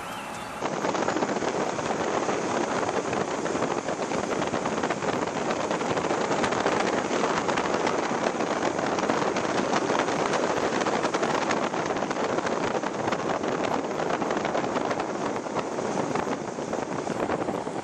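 Steady rush of a flooded, fast-flowing river, starting about half a second in, with wind noise on the microphone mixed in.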